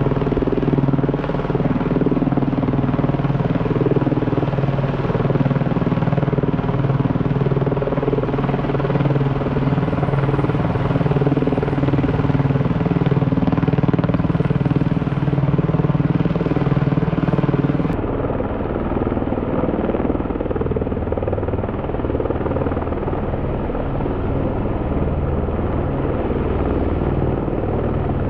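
Rescue helicopter's rotor and engine running steadily with a pulsing rotor beat. About two-thirds of the way in, the sound abruptly turns duller and deeper.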